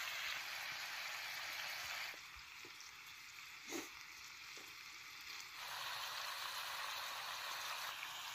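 Goat liver pieces sizzling in a black pan over a wood fire, a steady frying hiss. Between about two and five and a half seconds in the hiss is quieter and a few light taps sound.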